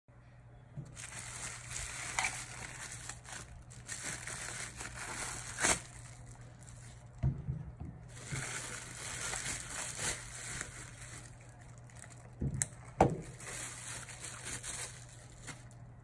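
Bubble wrap crinkling and rustling as it is pulled off plastic turn signal light housings by hand, in two long stretches, with a few sharp knocks in between.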